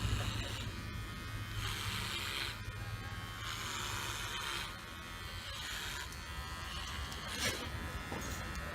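Cordless rechargeable KUKU dog clipper running with a steady buzz, its blade working through fur in repeated passes that come and go about every second or so. A brief click near the end.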